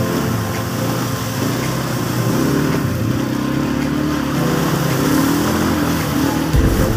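ATV engine running as it is ridden through muddy water, its pitch rising and falling with the throttle. A heavy low rumble joins in near the end.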